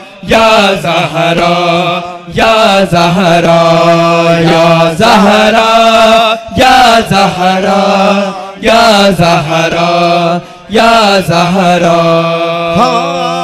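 Male voices chanting a Shia noha (mourning chant): a lead reciter with backing voices sings about six long, drawn-out phrases over a steady low held note.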